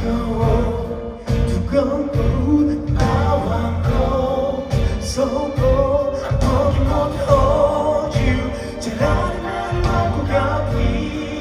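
A man singing a slow song live into a microphone with instrumental accompaniment, heard through a concert hall's sound system.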